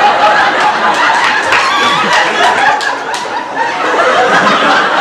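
An audience laughing and chuckling, many voices at once, with scattered sharp clicks.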